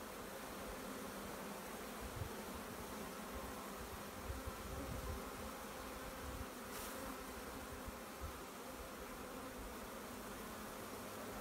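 A honeybee swarm buzzing in a steady, even hum, with a few brief low bumps about two seconds in and again around four to five seconds in.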